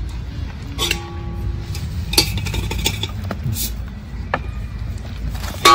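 Scattered light clinks and knocks of dishes being handled, over a low steady rumble. A short musical note sounds about a second in, and music comes in at the very end.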